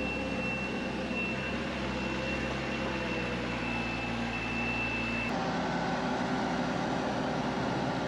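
Mercedes Vario 4x4 truck's engine running steadily under way, with a faint high steady whine. The engine note changes about five seconds in.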